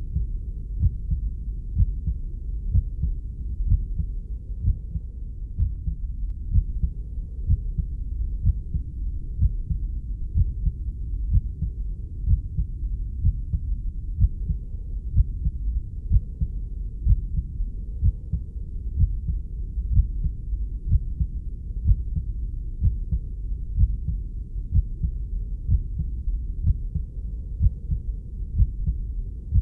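Muffled heartbeat, womb-sound style: deep low thumps about once a second over a steady low whoosh.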